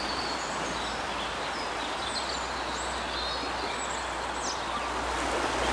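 Outdoor ambience: a steady hiss with small birds chirping in short, high-pitched calls. Near the end the rush of a shallow stream over stones swells in and becomes the main sound.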